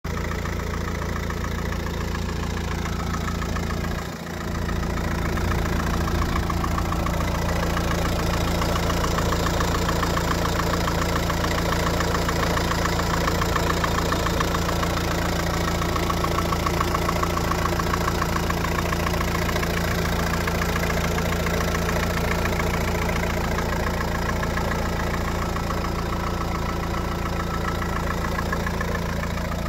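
Opel Z17DTH 1.7 four-cylinder turbodiesel idling steadily with diesel clatter, heard up close with the bonnet open. The sound briefly dips about four seconds in.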